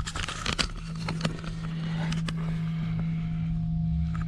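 Steady low hum of an idling truck engine heard inside the cab, with a few sharp clicks and knocks in the first second or so as the fridge door and its contents are handled.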